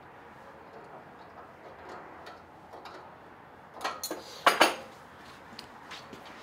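Sheet metal clinking and clattering against a hand-operated metal-forming machine as a curved panel is worked through its rollers. Light scattered ticks run throughout, then a burst of sharp, ringing metallic clinks comes about four seconds in.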